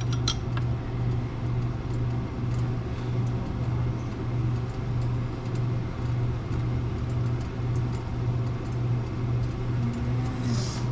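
A steady low hum that pulses about twice a second, with a few light clinks of dishes in the first moment.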